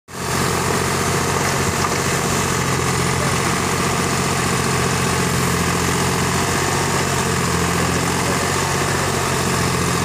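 Deutz-Fahr tractor's diesel engine running steadily while it drives the hydraulics of a rear-mounted BULL backhoe digging soil.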